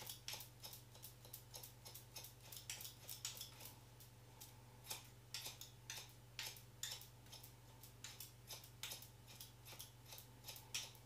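Hairdressing scissors point cutting into a pigtail of hair: many quick, faint snips in irregular runs, a few a second.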